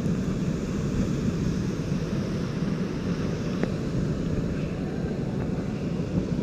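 Sea surf breaking on the shore, mixed with wind buffeting the microphone: a steady, low rumble with a lighter hiss above it.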